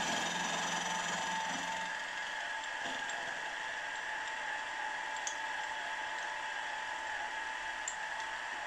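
Milling machine running, its cutter skimming the face of a cast cylinder block, with a steady whine. A lower hum drops out about two seconds in, and there are a few light ticks.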